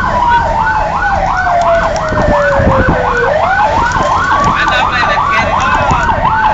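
Fire engine sirens sounding while responding: a fast yelp cycling about four times a second over a slow wail that falls, sweeps back up about halfway through, and begins to fall again. Heard from inside the truck's cab, with a low rumble beneath.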